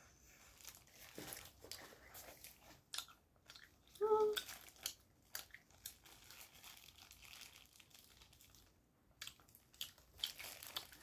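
Close-up chewing and crunching of crispy fried chicken: irregular crisp crackles and mouth sounds, with a short hummed vocal sound about four seconds in.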